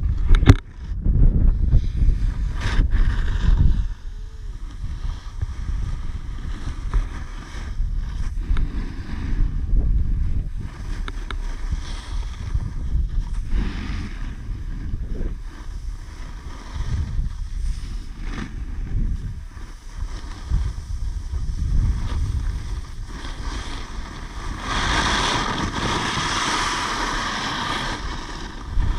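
Wind buffeting the microphone of a stick-held action camera while snowboarding, under the hiss of the snowboard sliding over snow. The low rumble is heaviest for the first few seconds, and a louder scraping hiss from the board comes near the end.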